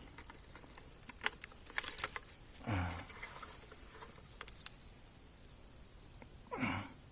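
Steady high-pitched trill of a cricket, with a few faint clicks about a second or two in. Two short, low, falling vocal sounds break in, one near the middle and one near the end.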